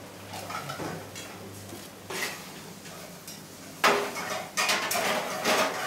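Pots, pans and metal utensils clattering, with a loud clang just before four seconds in and a busy run of clattering after it.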